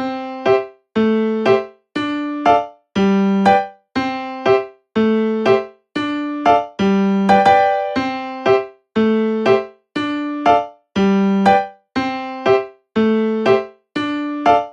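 Background music on an electric-piano-like keyboard: a simple melody of plucky note pairs, a longer note then a short one, repeating about once a second with a short gap of silence after each pair.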